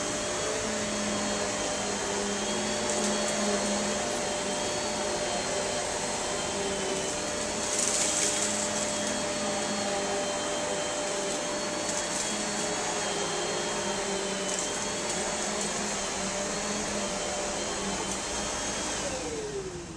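Kenmore vacuum cleaner running steadily while vacuuming carpet, with a steady motor whine. Near the end it is switched off and the motor winds down, its pitch falling.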